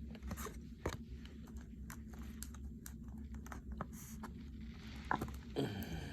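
Faint clicks and light scraping of trading cards being handled and shuffled, with a low steady hum beneath.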